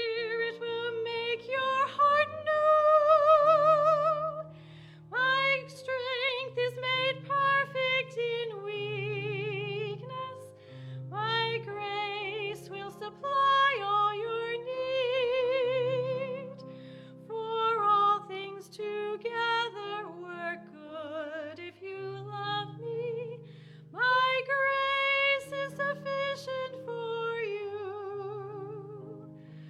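A woman singing a hymn solo over instrumental accompaniment, with held notes sung with vibrato.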